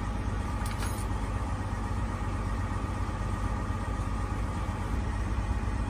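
An engine idling steadily with a low rumble, with a couple of light clicks about a second in.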